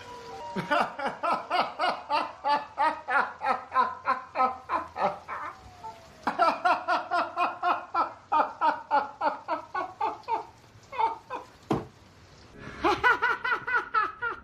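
A person laughing hard in rapid, evenly spaced bursts, in three bouts with short breaks between them.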